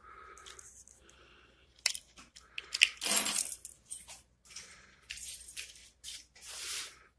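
Paper envelopes being handled on a countertop: irregular rustling and sliding with a few sharp taps, the loudest a scrape of paper about three seconds in. Breathing close to the microphone is heard between the handling noises.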